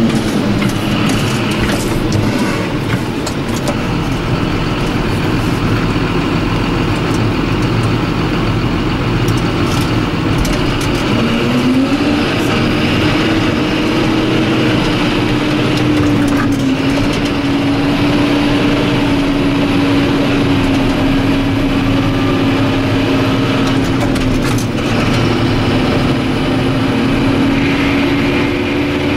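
John Deere 7530 tractor's six-cylinder diesel engine running steadily while carting; its note rises about eleven seconds in and then holds, dipping briefly a couple of times, with a few short knocks and rattles.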